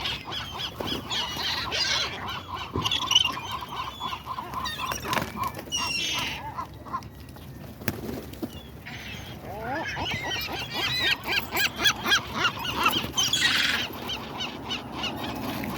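A flock of seagulls calling over one another in many short squawks, growing busier and louder near the end.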